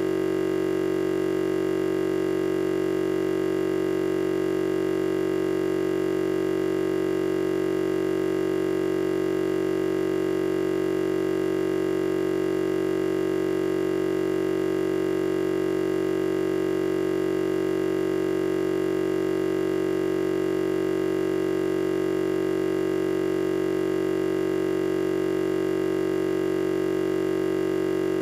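A steady, unchanging electronic buzzing drone, one strong low tone with many fainter tones stacked above it, held without any variation. It is a recording or stream glitch: the audio is stuck on a repeating snippet while the picture is frozen.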